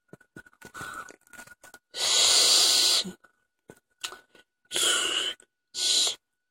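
A man lets out a loud, long, wheezing breath close to the microphone about two seconds in, then two shorter breathy puffs near the end.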